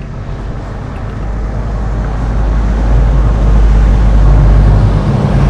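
A motor vehicle's engine and road noise, growing steadily louder over several seconds as it comes closer.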